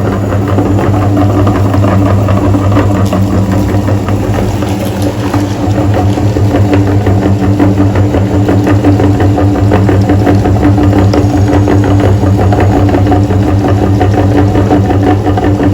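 A motor or engine running steadily, with a low hum and a fast, even rattle.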